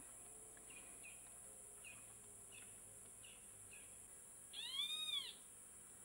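Short, high bird chirps repeat every half second to a second over a steady high insect drone. About five seconds in comes one louder, drawn-out animal call that rises and then falls in pitch.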